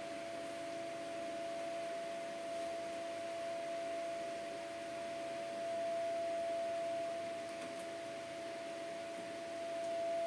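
A steady, unchanging tone with a fainter lower tone beneath it, over a soft even hiss of room noise.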